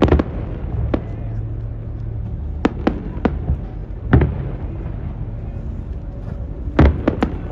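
Fireworks shells bursting in the sky: sharp bangs at irregular intervals, with a quick run of three near the end, over a steady low rumble.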